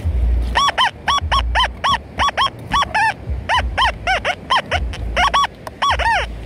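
XP Deus II metal detector sounding on a buried target: a rapid run of short nasal tones, about three or four a second, each rising and falling in pitch as the coil is swept back and forth over the spot. The target is still in the ground.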